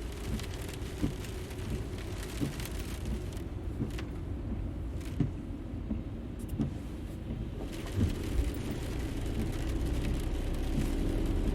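Car driving: a steady low rumble with irregular knocks and bumps. A steady low hum comes in near the end.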